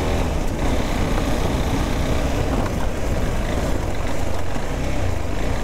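KTM 390 Adventure's single-cylinder engine running steadily while riding, under a steady rush of wind noise.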